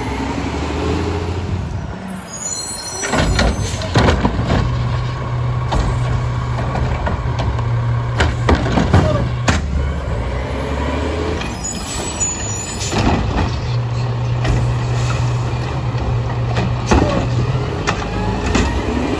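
Autocar WXLL garbage truck's diesel engine revving up and holding high twice to drive the McNeilus Curotto Can arm's hydraulics, with repeated metallic clanks and bangs as carts are grabbed and dumped. Short high air-brake squeals come shortly before each rev-up, as the truck stops at each pickup.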